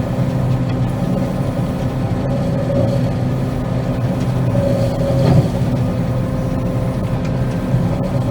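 Combine harvester running steadily while cutting soybeans: a continuous engine and machinery drone with a steady hum, slightly louder for a moment about five seconds in.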